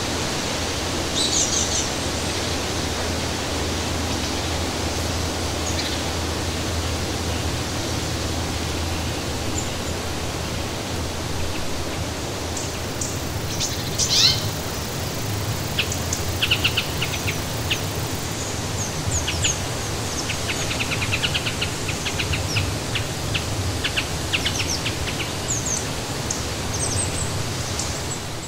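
Outdoor ambience: a steady rushing background noise with scattered short bird chirps and calls. One louder call, a falling whistle, comes about halfway through.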